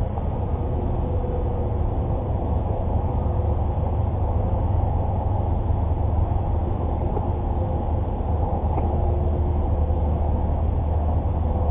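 Boat motor running steadily at a constant speed, a low even hum with no changes in pitch.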